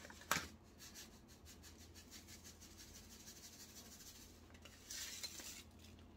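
Dried chopped onion being shaken out of a small sachet into a bowl: faint, quick crinkling and pattering of packet and flakes, a single sharp tap just after the start, and a louder rustle of the sachet about five seconds in.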